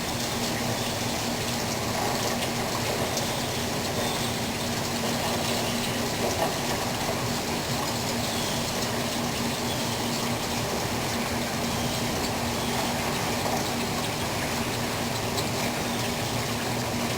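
Rain falling steadily in a storm rain band, a constant even hiss of water, with a faint steady hum underneath.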